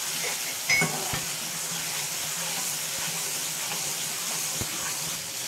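Tomato-onion masala sizzling in oil in a kadhai while a spatula stirs and scrapes through it, with a sharp clack of the spatula about a second in. The steady sizzle is the masala frying down to the point where the oil starts to separate.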